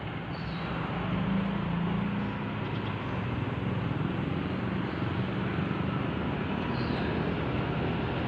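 Steady rumbling background noise with a low hum.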